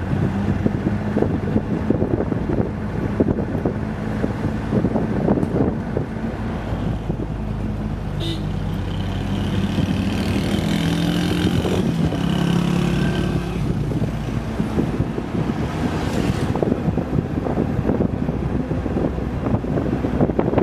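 Vehicle engine running and road noise heard from inside a moving vehicle. From about 8 to 14 seconds in, a second, higher engine sound is added, from a motorcycle riding just ahead.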